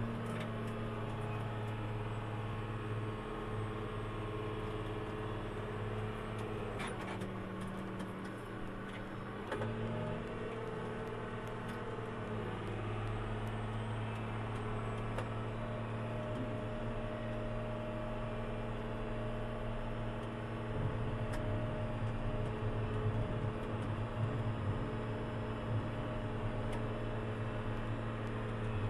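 Caterpillar 966G wheel loader's diesel engine running, heard from inside the cab as a steady hum. Its note drops for a couple of seconds about seven seconds in, comes back up, and grows louder and rougher from about twenty seconds in.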